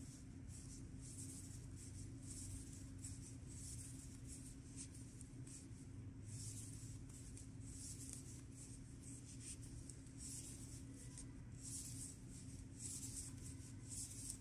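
Yarn sliding and rubbing on wooden knitting needles as plain stitches are knitted, a soft scratchy swish about once a second, over a low steady hum.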